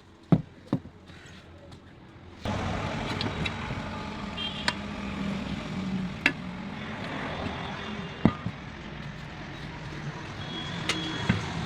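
Two sharp knocks, then about two and a half seconds in a steady vehicle engine rumble starts abruptly and runs on, with a few single clicks over it.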